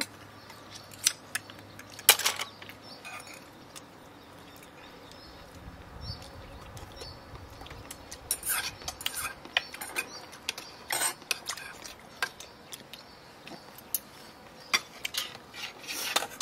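Scattered clicks and clinks of chopsticks, kitchen scissors and seafood shells knocking against a metal hotpot pan and dishes while eating, the sharpest about two seconds in.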